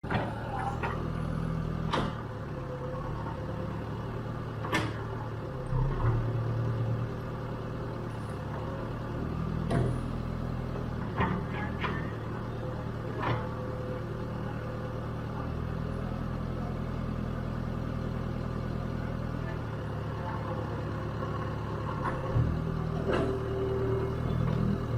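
JCB earthmover's diesel engine running steadily, its pitch shifting now and then, with about seven sharp knocks of demolition work scattered through.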